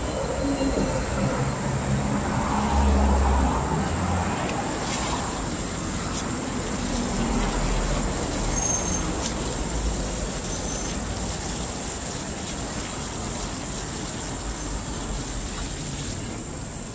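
Road traffic noise: a steady rumble, with a vehicle's engine swelling and passing about two to four seconds in, over a constant thin high-pitched whine.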